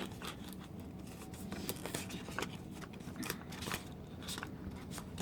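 Packaging being handled: scattered light clicks, scrapes and rustles.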